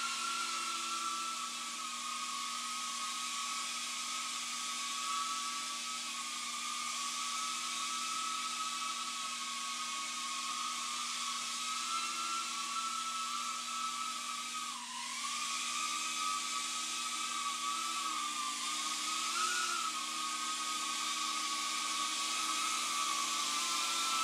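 Tiny whoop micro quadcopter flying: a steady high-pitched whine from its small motors and propellers. The pitch wavers with the throttle, dips sharply about fifteen seconds in and swells briefly a few seconds later.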